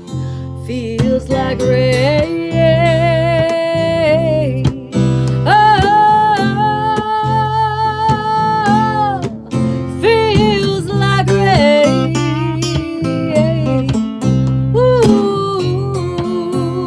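A woman's wordless vocal in long held notes, some wavering with vibrato, over a strummed steel-string acoustic guitar and a bass line.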